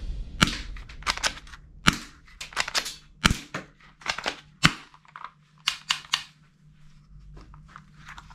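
Hard plastic toy guns clacking and knocking against each other as they are picked up and handled in a box: a run of irregular sharp clicks and knocks, a few of them louder, thinning out near the end.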